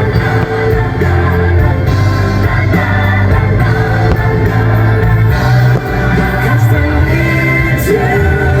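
Christmas music with singing from a fireworks show soundtrack, loud and continuous.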